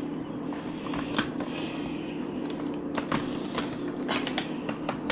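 Clear plastic bag crinkling and crackling as it is handled, in irregular sharp crackles with a stretch of rustling about a second and a half in, over a steady low hum.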